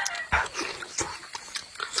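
Close-up eating sounds of gnawing meat off a braised duck bone: short wet smacks and chewing clicks, the sharpest about a third of a second in and again about a second in. The end of a rooster's crow trails off at the very start.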